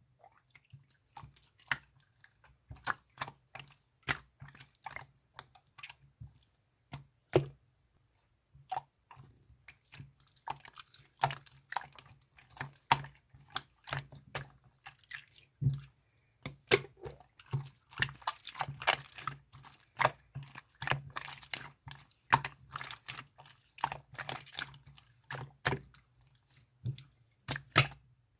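Irregular light clicks and taps, sparse at first and coming thicker and faster in the second half, over a faint low hum.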